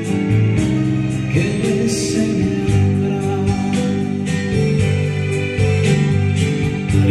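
Digital piano playing an instrumental passage of sustained chords over a steady beat of about two strokes a second, with no vocals.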